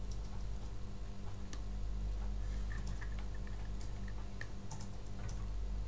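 Scattered small plastic clicks and creaks as the stiff rotor cover of a SunSun HJ-1543 pond pump's housing is worked at by hand, over a steady low hum.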